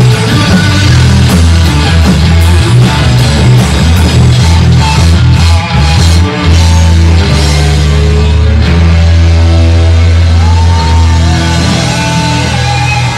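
Live rock band playing loud: electric guitars, bass guitar and drum kit. The drum hits thin out about halfway through, leaving longer held guitar and bass notes.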